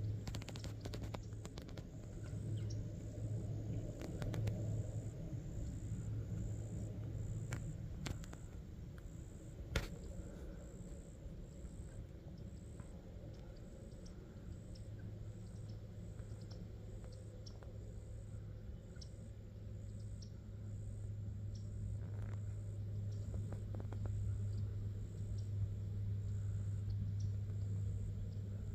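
Crickets chirping in a steady high-pitched rhythm, about one and a half chirps a second, over a steady low hum. There are a few clicks, with a sharp one about ten seconds in.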